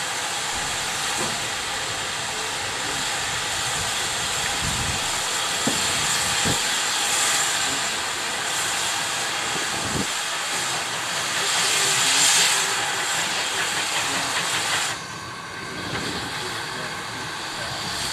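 Steady hiss of steam escaping from a standing GWR 4300 Class Mogul steam locomotive. It swells about two-thirds of the way through, then cuts off suddenly.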